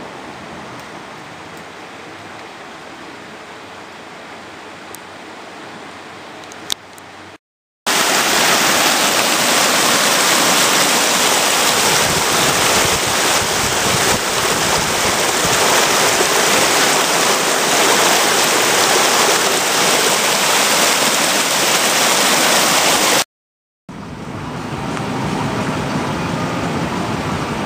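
Shallow river water rushing over rocks, steady and moderate at first, then much louder after a short break, heard close up at the water's surface. After a second break, near the end, a car driving takes over as a steady hum.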